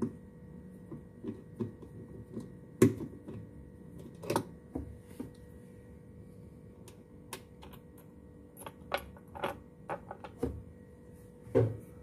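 Phillips screwdriver working the centre bolt out of a Sharp washing machine's plastic pulsator: irregular clicks and knocks of metal on metal and plastic, the loudest about three seconds in and again near the end.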